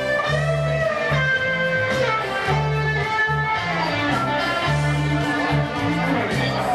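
A live band is playing. A Stratocaster electric guitar plays a lead line with bent, gliding notes over a pulsing bass guitar line.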